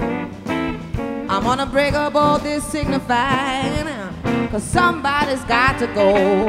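Live blues band playing: a woman sings with wide vibrato over electric bass, guitar and drum kit, with regular drum hits throughout.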